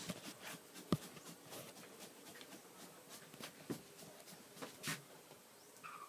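Quiet indoor room tone with a few faint, scattered knocks and clicks, the clearest about a second in. A short falling call begins near the end.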